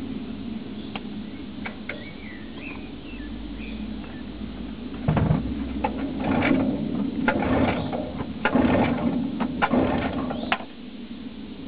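Mariner 9.9 hp outboard motor being pull-started after about three months' storage. From about five seconds in, the recoil starter rope is yanked several times in quick succession and the engine cranks, but it does not settle into running. Birds chirp faintly before the pulls.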